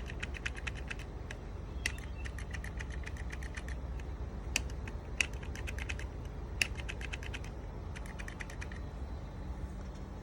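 Starter solenoid or relay of a 2020 BMW GS Adventure motorcycle chattering: about six runs of rapid clicks, roughly ten a second, each lasting up to about two seconds, with no cranking. The engine won't turn over although the battery is fully charged, a fault the owner puts down to a bad switch.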